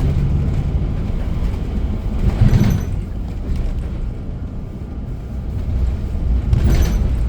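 Transit bus interior: engine and road noise as a steady low rumble, with two brief louder hissing or rattling bursts, one about two and a half seconds in and one near the end.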